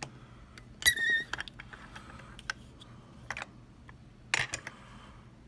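Small metallic clicks and scrapes of lockpicking tools working in a Mul-T-Lock MT5 lock cylinder, with one brief ringing metal ting about a second in and a quick run of clicks near the end.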